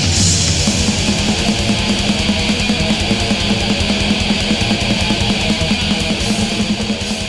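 Loud heavy rock music with guitar and a steady beat, starting to fade out at the very end.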